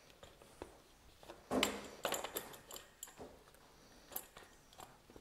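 Handling noise from paint-sprayer parts being handled: scattered light clicks and knocks, the loudest about one and a half seconds in.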